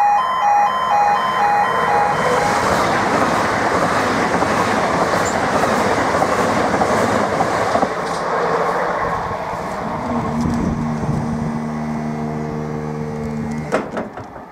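Great Northern Class 387 electric multiple unit passing over a level crossing: loud rail noise for about ten seconds that then fades. The crossing's two-tone warning alarm is heard at the start, and near the end a steady hum stops with a sharp clack.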